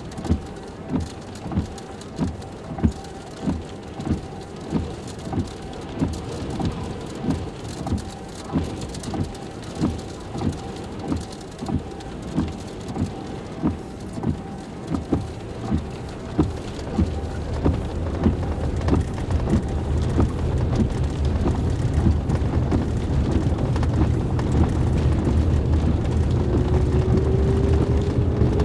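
Heavy rain in a severe thunderstorm, heard from a vehicle, with an even beat of knocks a little under twice a second. About halfway through, a deep rumble of strong wind builds and keeps growing louder, and a faint rising whine comes in near the end.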